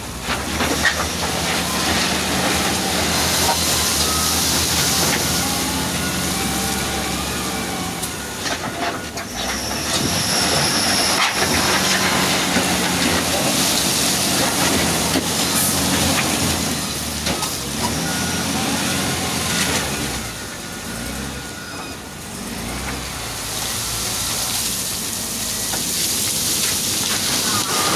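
Wheel loader's diesel engine running under load, with a steady hiss over it.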